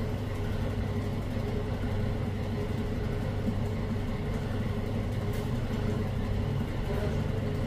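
A machine running steadily: a constant low hum with a few steady tones above it.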